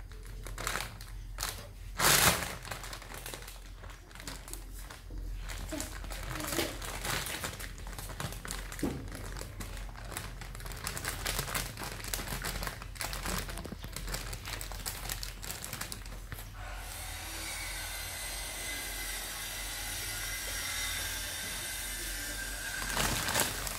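Thin plastic bag crinkling and rustling in irregular bursts as a kitten moves about inside it, with one loud crackle about two seconds in.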